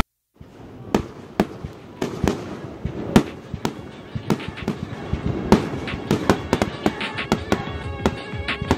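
Fireworks going off: sharp pops and bangs at irregular spacing, several a second, over a continuous crackle. Faint music comes in during the second half.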